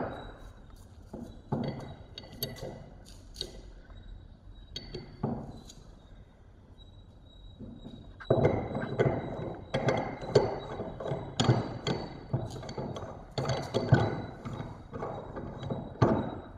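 Metal plumbing tools, a pipe die stock with its dies, being handled and set down on a metal workbench: scattered knocks and clinks, then a busier spell of clattering from about eight seconds in.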